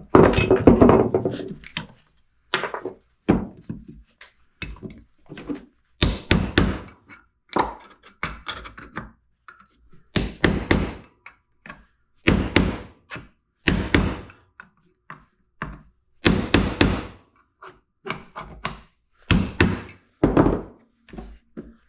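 Hammer blows on a punch, driving an old rear knuckle bushing out of a Yamaha Grizzly 660's heated steering knuckle. About two dozen sharp, irregular strikes, often in quick pairs.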